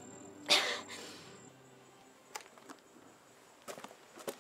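A woman's single harsh cough about half a second in, acted as the cough of a tuberculosis patient bringing up blood.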